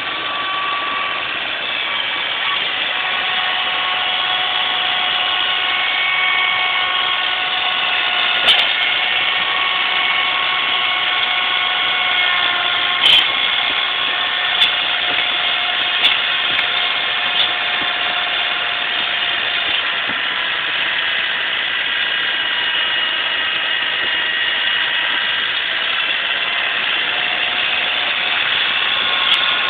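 John Deere tractor running an inverted snowblower while clearing snow: a steady, high mechanical whine from the engine and blower, with several pitches drifting slowly. A handful of sharp knocks cut in between about 8 and 18 seconds in and once more near the end.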